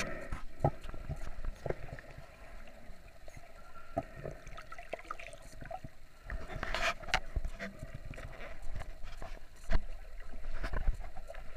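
Muffled underwater sound picked up by a submerged camera: faint sloshing and gurgling of water with scattered small clicks and knocks, swelling louder a few times around the middle and near the end.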